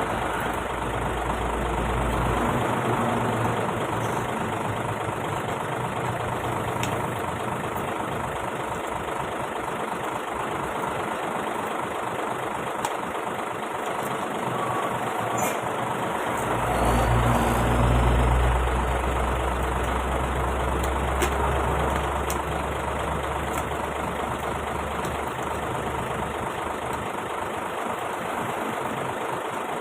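Hino truck's diesel engine idling steadily, its low rumble swelling louder for a few seconds past the middle.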